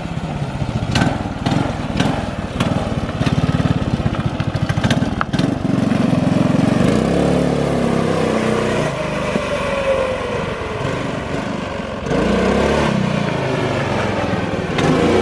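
Small gas engine of a gas-swapped Power Wheels ride-on toy car running while it is driven, its pitch rising and falling with the throttle. It gets louder about twelve seconds in.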